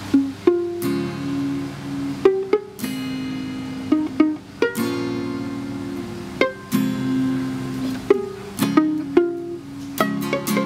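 An acoustic plucked-string instrument played by ear: chords struck every second or so and left to ring, with no singing.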